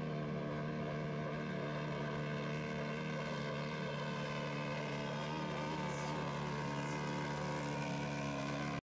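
Honda CRF 450 single-cylinder four-stroke motocross engine held at steady high revs as the bike skims across the water. The sound cuts off abruptly near the end.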